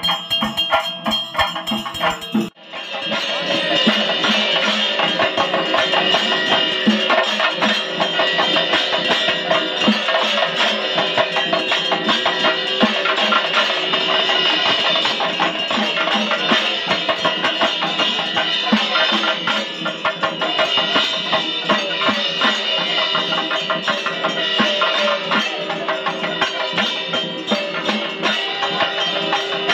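A temple bell rings steadily for about two and a half seconds. Then the sound cuts abruptly to music with a fast, dense drum and percussion rhythm.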